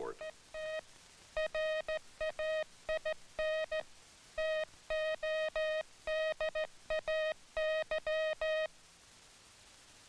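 Morse code sent as a single-pitch tone, in short dits and long dahs with gaps between them, then it stops. The phrase 'WE TRAIN TODAY' is sent with the letter spacing wrong, so it reads as 'WET RAIN TODAY'.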